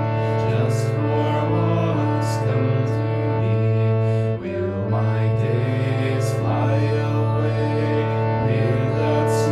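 Chant accompaniment on a sustained drone instrument: a steady low note held under shifting held chords of the chant melody. There is a brief drop about halfway through.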